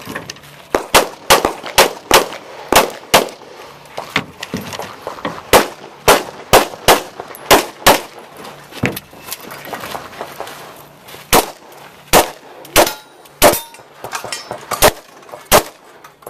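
Glock pistol fired string after string of shots, mostly in quick pairs about half a second apart. Brief pauses fall between the strings.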